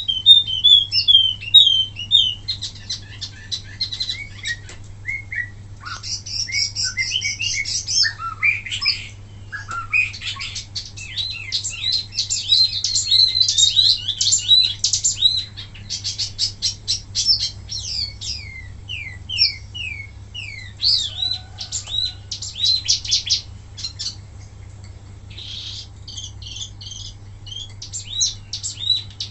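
Wambi mini songbird singing: long runs of rapid high chirps and trills, with the bursts ("tembakan") broken by brief pauses. A faint steady low hum sits underneath.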